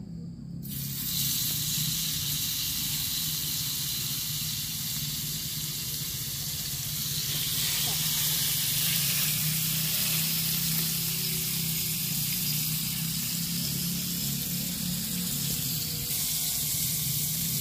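Food sizzling steadily as it fries in a pan, starting about a second in, with a steady low hum underneath.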